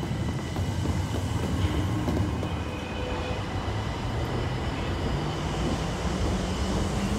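Marunouchi Line subway train running beside the platform, a steady low rumble.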